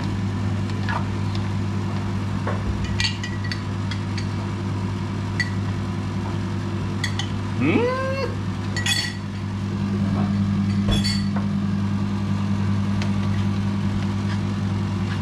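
Metal spatula clinking against a steel frying pan as vegetables are stirred: scattered light clinks over a steady low hum.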